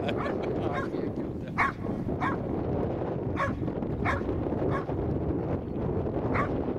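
Karelian bear dog bay-barking at a wild boar: short barks at uneven gaps, roughly one or two a second.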